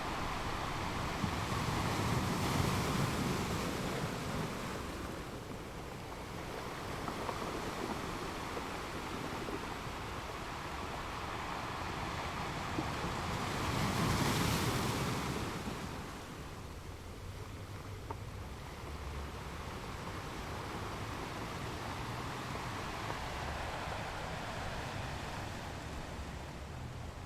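Sea waves washing ashore in a continuous wash of surf, with two larger waves swelling and breaking, one a few seconds in and one about halfway through.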